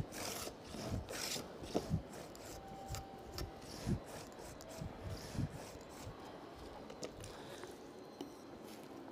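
Small Japanese hand plane (kanna) shaving hinoki kumiko strips in a jig. The plane strokes rasp across the wood, loudest in the first second or two, with several light wooden knocks as the plane and pieces are handled. The strokes grow fainter later on.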